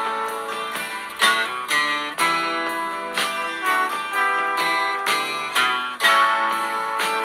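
Instrumental background music of plucked string notes, each struck sharply and then ringing out, in a steady flowing pattern.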